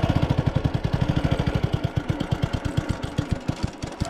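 Small vehicle engine idling with an even beat that slows and fades away near the end as the engine is shut off.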